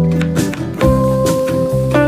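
Background instrumental music with plucked guitar and a bass line.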